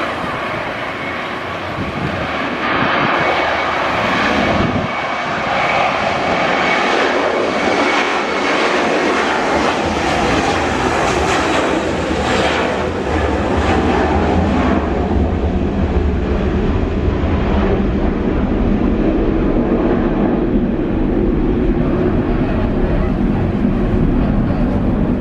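Airliner's jet engines roaring close by, with a steady high whistle early on. The high hiss fades after the middle of the passage while a deep rumble grows.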